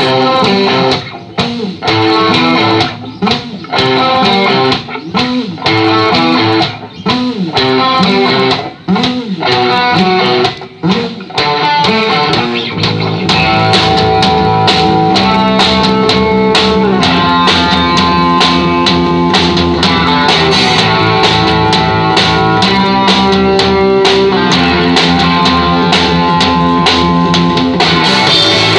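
A live band plays electric guitars and a drum kit. It opens with a stop-start riff broken by short gaps, then the full band comes in steadily about halfway through.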